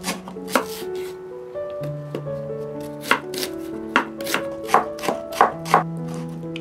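Chef's knife slicing through onion and raw chicken breast and knocking on a wooden cutting board: about ten sharp knocks at an uneven pace. Background music with sustained notes plays under them.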